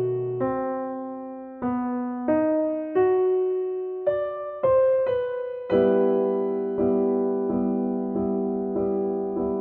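Background music on solo piano: a slow melody of single notes, each struck and left to fade, then from about halfway a chord repeated steadily roughly every second.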